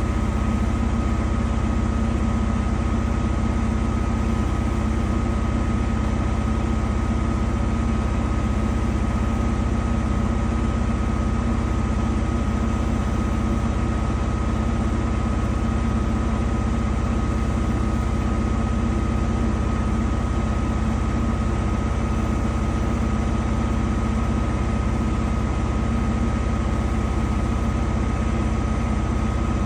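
Danube 20 kg commercial washer-extractor running steadily in its high-speed spin, a constant deep hum with a thin steady whine above it and no pauses.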